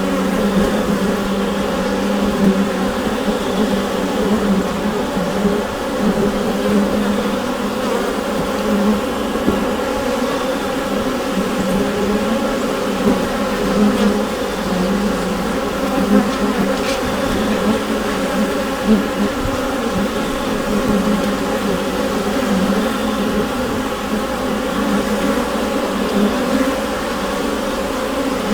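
Honeybee colony heard from inside the hive: a steady, dense buzz of many bees with a pitch around 200 Hz, swelling slightly now and then as individual bees pass close.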